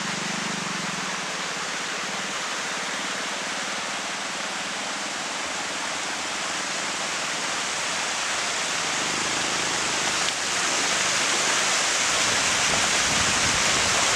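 Steady rushing water of a stream, a little louder from about ten seconds in.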